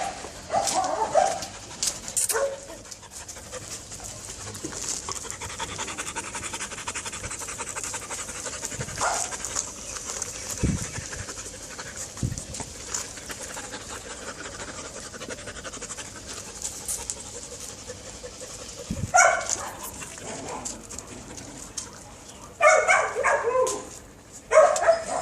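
Dog panting steadily, with a few short, loud vocal sounds about a second in and again near the end.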